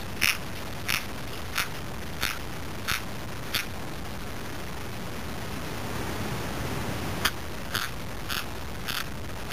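Kitten chewing kibble: regular short crunches, about one and a half a second, that sound like grinding teeth. They pause for a few seconds midway, then resume.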